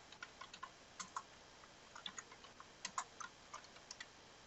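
Faint computer keyboard typing: an irregular run of short key clicks.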